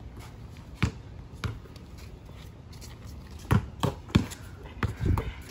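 Basketball being dribbled on a concrete driveway: a handful of sharp, unevenly spaced bounces, two early on and a quicker run of them in the second half.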